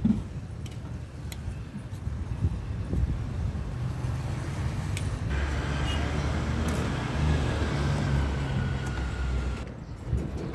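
A car passing on the street below: engine and tyre noise swell about five seconds in, with a faint, slowly falling whine, and fade away near the end, over a low traffic rumble. A few light taps sound earlier on.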